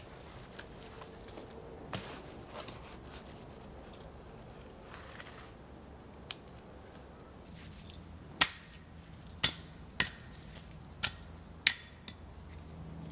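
Hatchet blows on wood: five sharp, loud strikes, roughly one a second, in the second half, after a few faint wooden knocks of pine poles being set in place earlier on.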